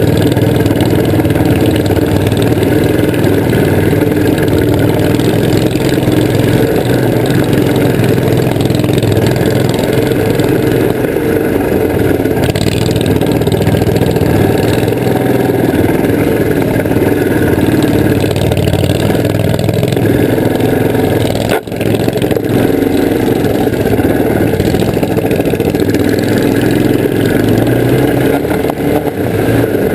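Engine of a vintage 1970 Hustler 6x6 ATV running steadily under way, with one brief sharp drop in level about two-thirds of the way through.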